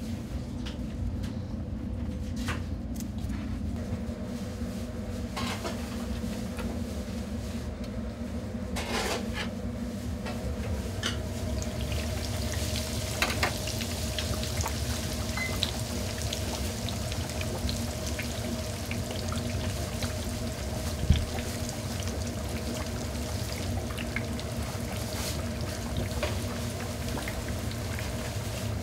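Pork cutlet deep-frying in a large commercial fryer: the oil sizzles and bubbles steadily from about twelve seconds in, over a steady low hum of kitchen equipment. Before that come a few soft rustles and taps as a cutlet is pressed into breadcrumbs. One sharp knock comes about two-thirds of the way through.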